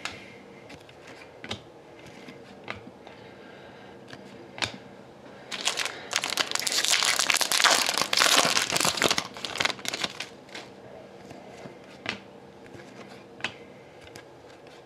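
Foil trading-card pack wrapper crinkling and being torn for several seconds in the middle, the loudest sound, with light clicks and rustles of cards being handled before and after.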